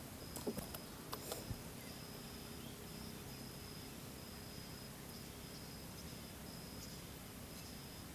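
Faint insect trilling: one steady high note sounding in short stretches with gaps. A few faint clicks fall in the first second and a half.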